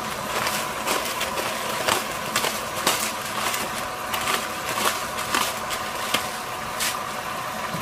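Hand-turned pepper mill grinding black pepper over a pot of raw meat: a run of irregular crackling clicks as the grinder is twisted.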